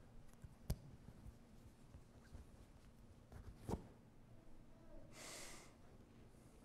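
Near silence: faint room tone with two small clicks and a short soft hiss about five seconds in.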